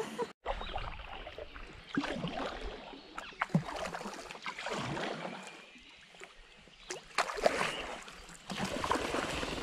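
Kayak paddle blades dipping into the river and splashing in irregular strokes, with water dripping and sloshing around an inflatable kayak as it is paddled along.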